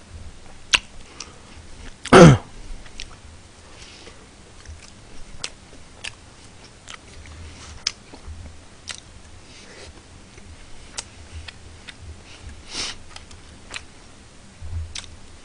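Close-miked chewing and mouth sounds of someone eating a pork cutlet and rice lunch box with chopsticks, with scattered small clicks throughout. A loud sniff comes about two seconds in, and a fainter breathy one near the end.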